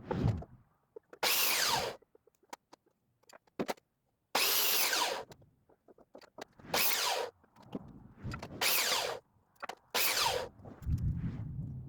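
Power drill run in short bursts, about five, each under a second, its pitch sliding down within each burst, as in drilling holes or driving fasteners during the rig build.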